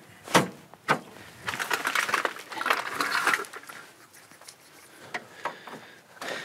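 Handling noise from work on a circuit breaker and wiring in an electrical panel: two sharp clicks about half a second and one second in, then a couple of seconds of scraping and rustling that grows quieter.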